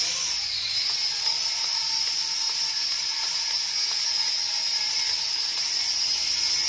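Small toy quadcopter drone flying, its four tiny motors and propellers giving a steady, high-pitched whine that wavers slightly in pitch near the start.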